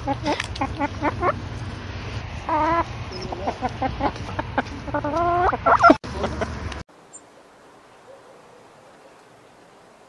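Domestic hens clucking: a run of short clucks mixed with a few longer, drawn-out calls. The clucking cuts off abruptly about two-thirds of the way through, leaving only a faint background.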